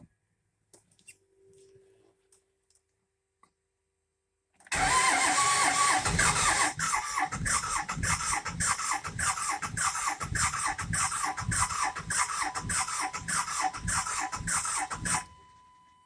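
2001 Cummins 5.9 L inline-six diesel being cranked by its starter, with a steady chugging rhythm of compression strokes and a starter whine, for about ten seconds without catching, then cut off. It does not start despite a new VP44 injection pump.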